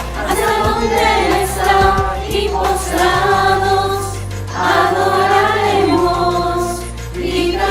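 A choir sings a Spanish-language Christmas song over an instrumental accompaniment, with a held bass note that changes twice.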